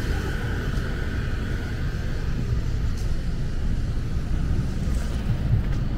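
Steady low rumble of road traffic, with a motorcycle's engine fading away over the first couple of seconds.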